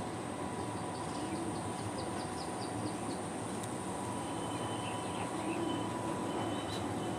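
Steady background rumble with a bird chirping a quick run of short high notes about a second in, and a few more chirps later.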